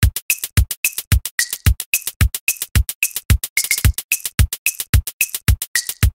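Background music: a fast, steady electronic drum-machine beat, with a low kick about every quarter second and crisp high ticks between the kicks.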